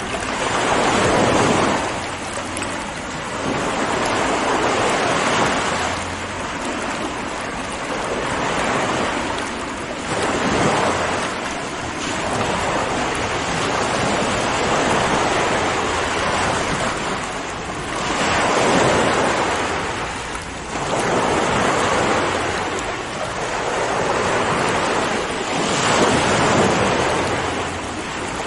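Sea waves breaking and washing in, the surf swelling and falling back every few seconds over a constant rush of water.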